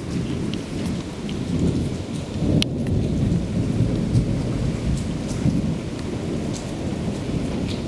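Thunderstorm: a continuous low rumble of thunder under rain, with scattered sharp ticks of drops, one louder about two and a half seconds in.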